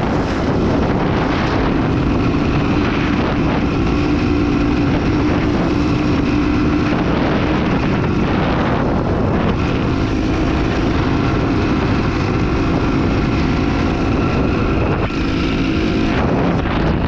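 Off-road motorcycle engine running under throttle while being ridden, with wind noise on the microphone. The engine note holds steady for stretches and shifts in pitch a few times.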